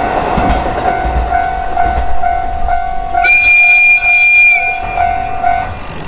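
Electronic train sounds from a Lego toy train's sound unit: a steady tone pulsing about twice a second, joined about three seconds in by a higher whistle-like tone held for about a second and a half.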